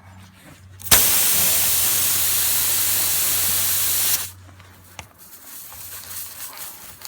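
Pressurised air hissing out of a tire's puncture hole while it is reamed out for a plug. The hiss starts suddenly about a second in and cuts off sharply about three seconds later, as the hole is opened and then blocked again.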